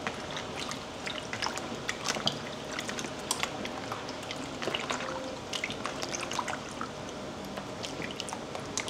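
A hand sloshing through salted soaking water among cut taro chunks in a plastic basin, with many small, irregular splashes and drips.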